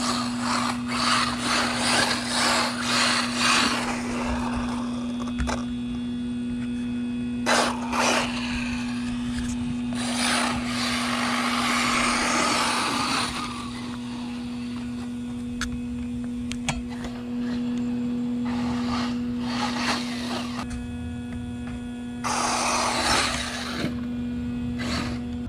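1/8-scale brushless RC buggy with a 1900 kV motor on 4S, driven on dirt: repeated bursts of electric motor whine and tyres spraying dirt as it accelerates and slides, with a steady hum underneath.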